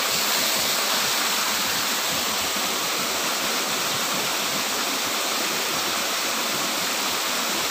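Steady, noisy rush of water from a small cascade (grojogan) at a fish-pond outflow, pouring into the pool below.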